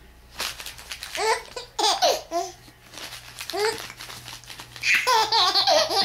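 Five-month-old baby girl laughing in short bursts, then a longer run of laughter near the end, while a sheet of paper is crumpled and crinkled in front of her.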